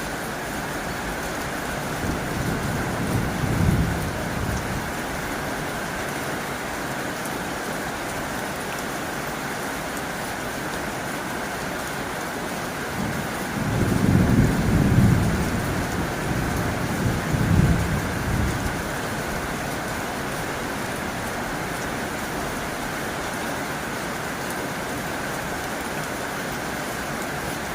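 Heavy rain drumming steadily on a tin roof. Twice the rain is joined by a low rumble: briefly about two seconds in, then longer and louder around the middle.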